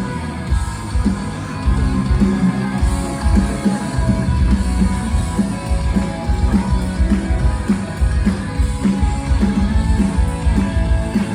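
Rock music with electric guitar and a drum kit, playing loud and steady.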